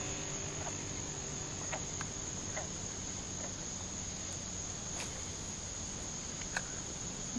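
Insects trilling steadily at one high, unchanging pitch, with a few faint scattered clicks.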